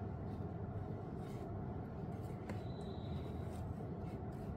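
Steady low room hum with faint clicks and rubbing from a camera being handled, and a brief faint high tone a little after halfway.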